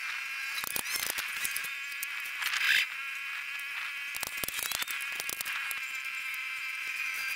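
Steady high-pitched insect buzzing, with scattered light clicks and taps of wooden frame strips being handled on a plywood board, and one louder scrape about two and a half seconds in.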